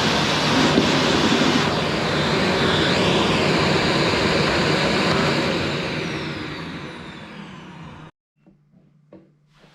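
Qilive vacuum cleaner running at full suction, a steady rushing noise whose pitch wavers briefly as the nozzle works over sofa upholstery. Over the last few seconds its motor winds down with a falling whine and fading rush, then the sound cuts off abruptly, leaving a faint low hum and a few small clicks.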